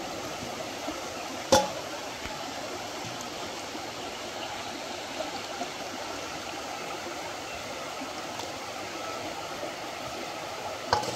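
Shallow river running over rocks and pebbles, a steady rushing of water. A single sharp knock stands out about a second and a half in, with another near the end.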